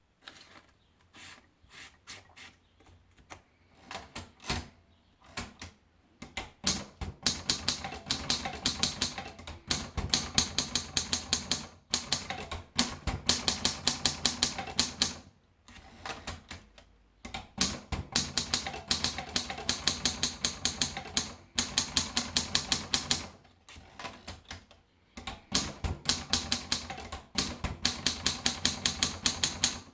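Continental 35 (Wanderer-Werke) manual typewriter being typed on. A few slow, scattered keystrokes open the sound, then from about seven seconds come fast runs of key strikes, many a second, broken by short pauses.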